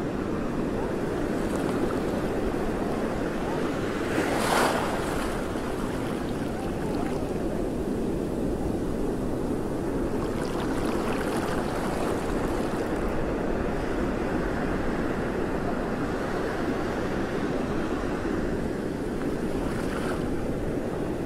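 Sea waves sloshing and washing close to the microphone at water level, with a louder splash about four seconds in.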